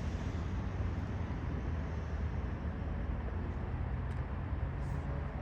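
Steady low rumble of street traffic and idling vehicle engines, with a couple of faint ticks near the end.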